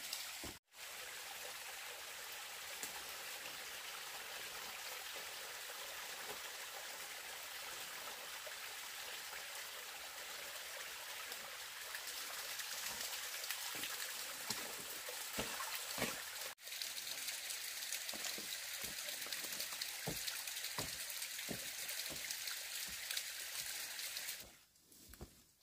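Steady trickle of water running and splashing down a rock face, with a few faint knocks; it falls away near the end.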